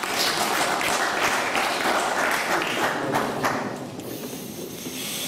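Audience applauding, the clapping thinning out and fading over the last second or two.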